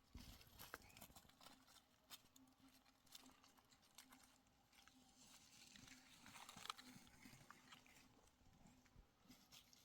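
Near silence: faint scattered clicks and soft rustling over a low steady hum.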